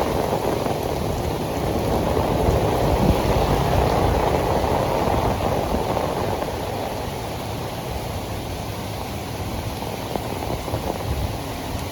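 Heavy tropical rain pouring steadily onto pavement, a dense even hiss that eases off a little about halfway through.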